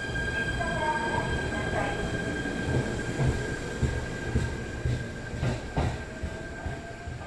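Electric train running along the station tracks: a steady low rumble with irregular wheel thumps over the rail joints, mostly in the middle seconds, under a steady high-pitched whine.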